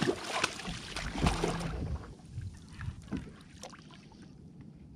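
A rockfish splashing at the surface as it is hauled out of the water by the line beside a fishing kayak, with knocks and rattles of handling on the hull. The splashing is loudest for about the first two seconds, then a few light knocks follow.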